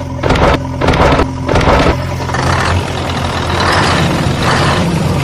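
A heavy engine idling, revved three times in quick succession in the first two seconds, then running on with a rougher rumble.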